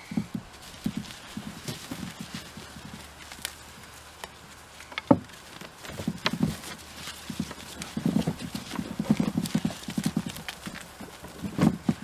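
Gloved hands breaking apart a dry, root-bound clump of potting soil and sweet potato roots in a wheelbarrow: irregular crumbling, rustling and dull knocks of soil clods dropping into the tub. A sharp knock about five seconds in is the loudest sound, and the crumbling is busiest near the end.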